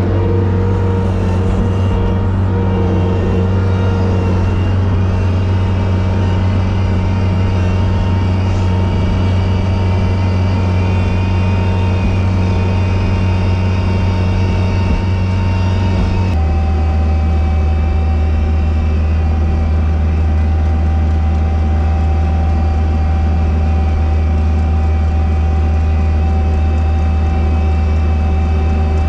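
Engine of a sidewalk snow-clearing machine running steadily under load, heard from inside its cab. About halfway through, the engine note steps down a little and then holds steady.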